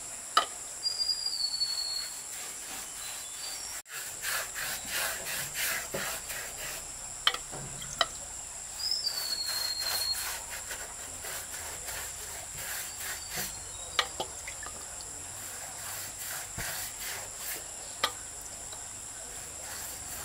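Insects droning steadily in a high, even tone, with two short falling bird calls, about one second in and again about nine seconds in, and a few sharp knocks scattered through.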